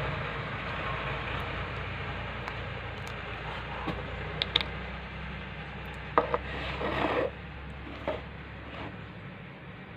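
A small plastic paint bottle being opened and handled: a few light clicks and knocks, and a brief scrape a little after the middle, over a steady low hum.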